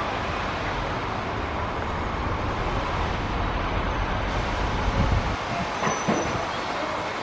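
Embraer ERJ-145 regional jet's twin rear-mounted turbofans running as it rolls along a wet runway: a steady rumble of jet engine noise, with a couple of brief low bumps about five and six seconds in.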